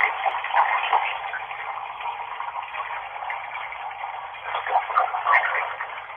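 Running tap water making a steady rushing hiss, heard thin and muffled with no deep or high tones, with a few short louder flecks in it near the end.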